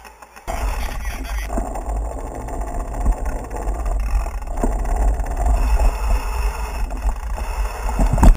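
Wind rushing over an action camera's microphone and the running noise of a mountain bike on the move, with a few short knocks. It starts suddenly about half a second in and cuts off abruptly at the end.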